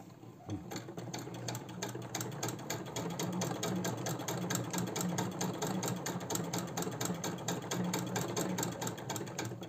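1913 Singer 66 sewing machine with a horizontal shuttle, stitching a strip of fabric. Its steady rapid clatter runs at about six stitches a second, starts about half a second in and stops at the very end.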